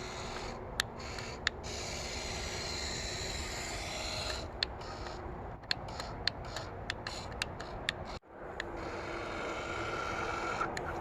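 The GoLight searchlight's small electric pan-and-tilt motors whirring steadily, with a dozen or so sharp clicks scattered through. The sound cuts out briefly about eight seconds in, then the whirring resumes.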